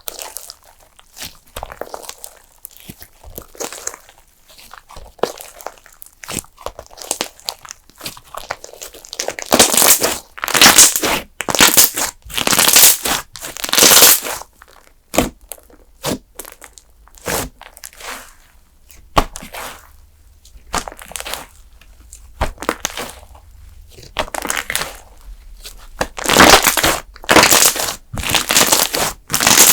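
Thick custard-base slime being squeezed, pressed and stretched by hand, giving irregular runs of crisp, crackly popping and crinkling. It is quieter at first and loudest in spells about a third of the way in and near the end.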